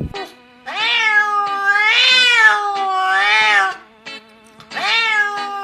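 A cat giving long, wavering meows: one drawn-out call of about three seconds, then a second one starting near the end.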